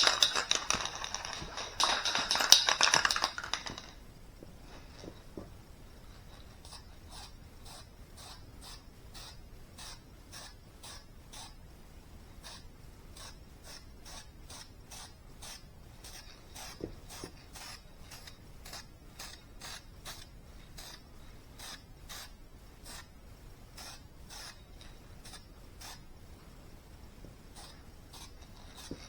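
Aerosol spray paint can hissing in a spray pass for about four seconds, then stopping. Faint, regular clicking follows, about two a second.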